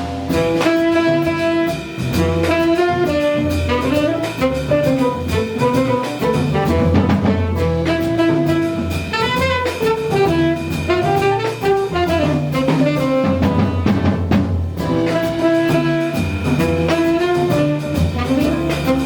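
Live jazz combo playing: a saxophone carries a winding melodic line over bass, piano and a drum kit with cymbals.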